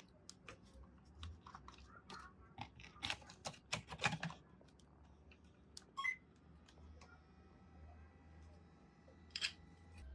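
A run of small sharp clicks and taps, like hard plastic parts being handled and fitted together. They are busiest in the first half, with a couple of single clicks later.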